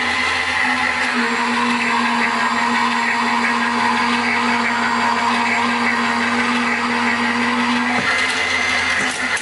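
Gemini Junior electronic die-cutting and embossing machine running, its motor drawing a plate sandwich with an embossing folder through the rollers. A loud, steady motor hum whose tone shifts about eight seconds in.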